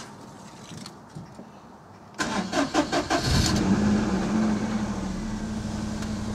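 Daihatsu Charade L251's 1.0-litre three-cylinder petrol engine cranked on the starter about two seconds in, catching after about a second of cranking and settling into a steady fast idle.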